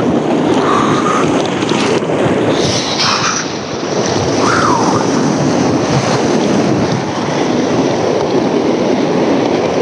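Whitewater rapids rushing and splashing around and over a kayak's bow, a loud, steady roar of churning water heard close up from the boat.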